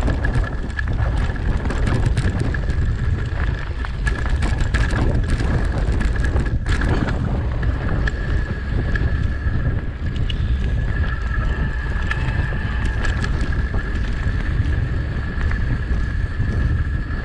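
Mountain bike riding fast down a dirt forest trail: wind buffeting the microphone over a constant low rumble of tyres on dirt and dry leaves, with many short knocks and rattles as the bike goes over bumps. A thin steady high tone runs throughout.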